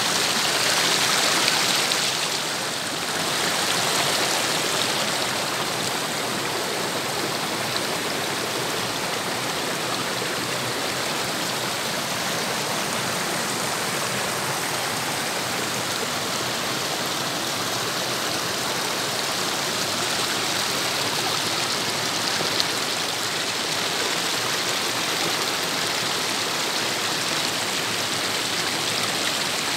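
Shallow stream running over rocks and pebbles: a steady rush of flowing water, a little louder in the first two seconds.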